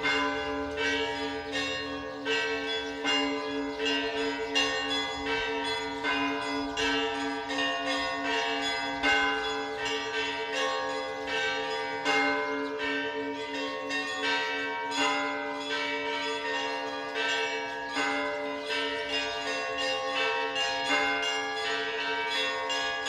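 Church bells ringing: many bells struck in quick, continuous succession over the long, sustained ring of the lower bells.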